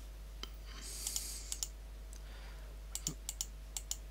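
Computer mouse clicking: a dozen or so short, sharp, irregular clicks, grouped most thickly in the last second or so, as drawings are deleted from an on-screen chart.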